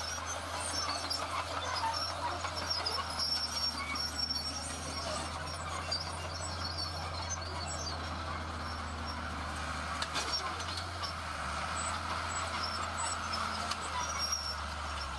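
Diesel engines of heavy earthmoving machinery running steadily under work, a constant low drone with scattered faint clicks.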